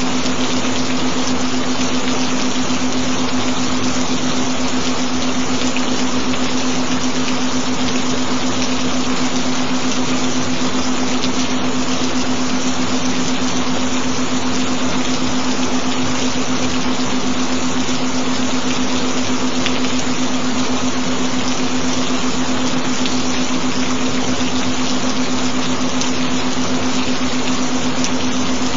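Steady recorded rain: an even, unbroken hiss, with a steady low binaural tone held underneath.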